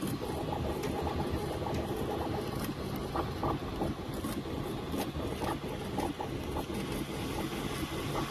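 3D printer running a print: steady motor and fan noise with short, quick-changing whines from the stepper motors as the head moves.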